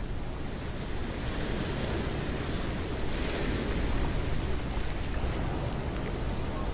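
Ocean surf breaking where lava flows into the sea: a steady, rumbling wash of noise that swells a little about three seconds in.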